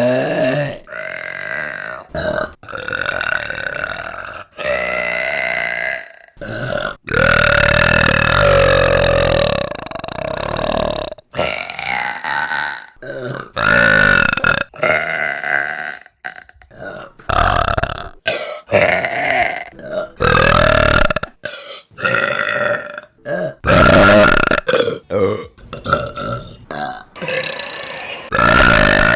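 Women burping, one clip after another. It is a rapid run of many separate belches of varying length, from short ones to a few long, drawn-out ones, each cut off abruptly where the clips are edited together.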